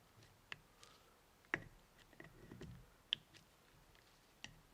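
Faint, scattered clicks and light taps of a flathead screwdriver working a tight rubber dust boot lip around an Acura RL brake caliper piston, about four clicks, the loudest about a second and a half in.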